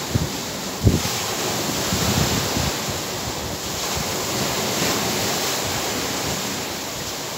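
Wind buffeting the microphone over surf washing on the shore, with a couple of short low thumps in the first second.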